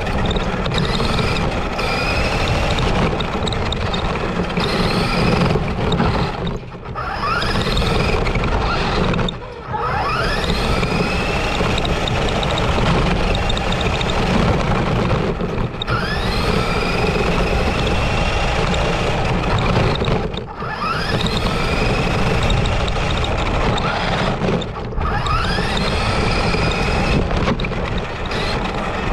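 Cheap electric RC monster truck driving on concrete, heard from a camera mounted on it: the motor and gears whine and the tyres rumble over the surface. The sound dips briefly a few times as the throttle is let off, and each time the whine sweeps up in pitch as the truck speeds up again.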